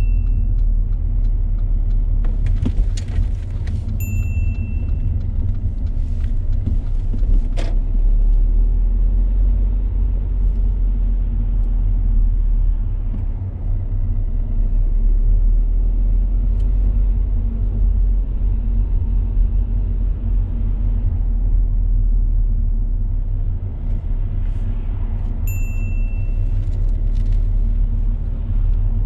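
Car driving along, heard from inside the cabin: a steady low rumble of engine and road noise, with a few sharp clicks early on and two short high-pitched beeps, one after about four seconds and one near the end.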